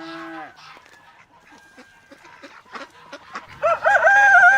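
Rooster crowing. One crow trails off at the start, a few soft clucks follow, and a loud, long crow begins about three and a half seconds in.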